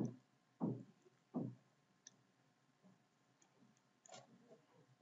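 Computer mouse clicks picked up by the microphone: three soft clicks in quick succession at the start, a few faint ticks in the middle, and a brief scuffing sound just after four seconds in.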